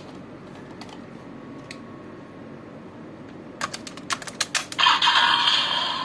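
Hard plastic clicks of a DX Desire Driver toy belt's raise buckle being worked by hand, a few faint ones and then a quick run of sharp clicks about two-thirds of the way in. Right after the clicks the belt starts an electronic sound effect from its small built-in speaker.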